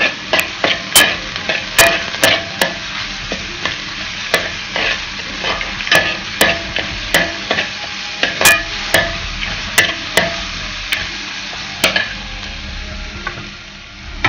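Metal spoon stirring chopped onions and ginger-garlic paste frying in oil in a metal pan: sizzling, with irregular clinks and scrapes of the spoon against the pan. The clinks stop about two seconds before the end, leaving a quieter sizzle.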